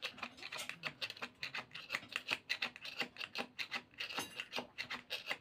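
Pieces of fish crackling in hot oil in a metal pan: a steady run of small, sharp, irregular pops, several a second.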